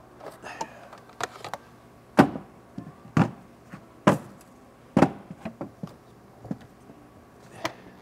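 Irregular clicks and light knocks of hand work on plastic engine-bay parts, as connectors and intake pieces are handled and unplugged. There are about a dozen separate sharp strikes, the loudest about two and three seconds in.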